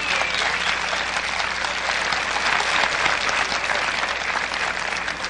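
Studio audience applauding steadily, a dense crackle of many hands clapping. A thin high whistle glides downward and fades away in the first half second.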